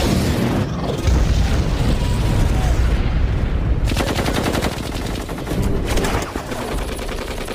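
Film action soundtrack of heavy automatic gunfire, with a long run of rapid shots about four seconds in, over a low rumble.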